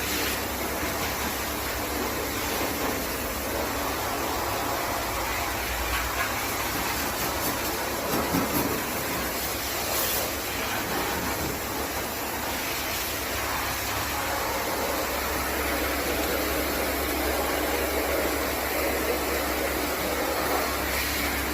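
Steady hiss of a cleaning spray, with a low machine hum underneath, as an air conditioner is washed out.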